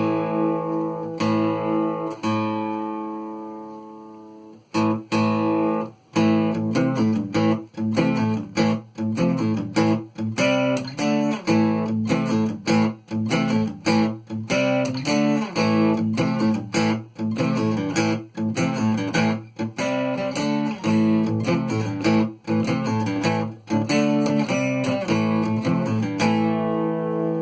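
Cort GA5F-MD acoustic guitar played unplugged: one strummed chord rings out and fades over about four seconds, then steady rhythmic strumming of chords follows.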